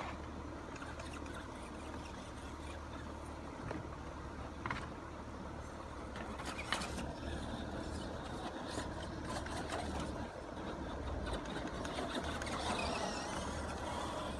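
Electric motor of an ECX Amp brushed RC car whining as it drives, with its pitch rising and falling near the end as the throttle changes. Scattered light clicks and ticks run over a steady low hum.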